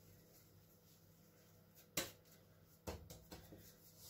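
Mostly quiet, broken by a sharp knock about two seconds in and a few lighter knocks a second later: hands and the dough bowl on a granite counter while dough is pinched off into small balls.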